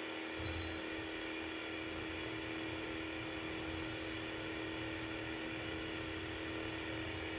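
Steady mechanical hum inside a Stannah passenger lift car, with one held mid-pitched tone over an even whir. A brief soft hiss comes about four seconds in.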